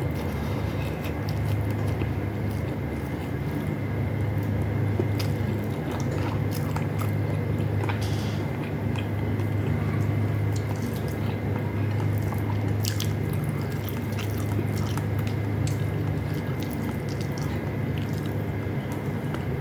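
A person eating beef loaf and rice: chewing, with short wet clicks and smacks scattered throughout, over a steady low hum.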